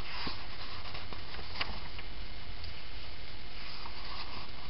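Steady low hum and hiss, with a few faint rustles and light ticks of paper being handled.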